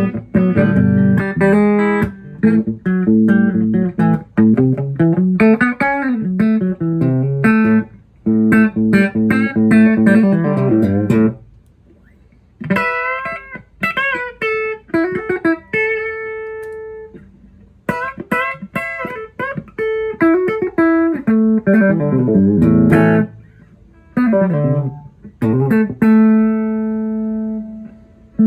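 Electric guitar played through a 1973 Fender Twin Reverb silverface tube amp at full power, as a test of the restored amp: picked riffs and single-note runs with slides and bends. There are a few short pauses, and a note is left ringing near the end.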